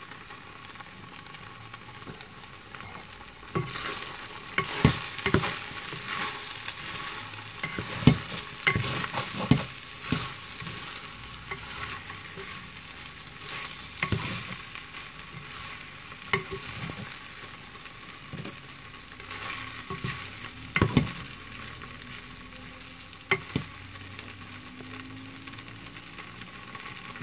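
Rice noodles with turkey and cabbage sizzling in a stainless steel pan as they are stirred and tossed with a utensil. Irregular scrapes and knocks of the utensil against the pan start about four seconds in.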